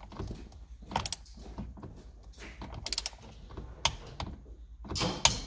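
Ratchet of a click-type torque wrench tightening the steering wheel's centre nut to its first torque setting of 20 ft-lb: a few separate metallic clicks and short ratcheting rasps.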